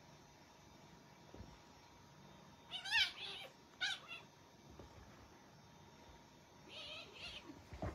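Cats play-fighting, giving short meows that rise and fall in pitch: two about three and four seconds in, then two fainter ones near the end, followed by a soft thump.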